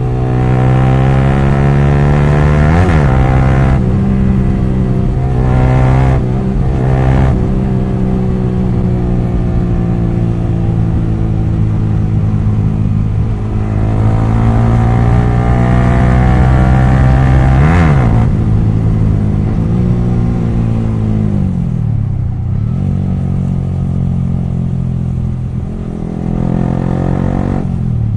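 Yamaha R15 V3's single-cylinder engine running loud through an exhaust with its dB killers removed. The pitch climbs under throttle and dips sharply twice, about three seconds in and again past the halfway mark, then falls and rises once more near the end.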